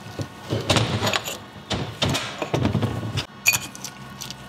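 Differential carrier with its ring gear bolted on being handled and set down on a workbench: knocking and scraping of metal parts, then a sharp metallic clink about three and a half seconds in.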